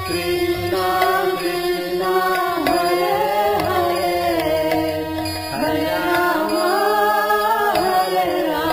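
Indian devotional music: a voice singing a gliding melody over a steady drone.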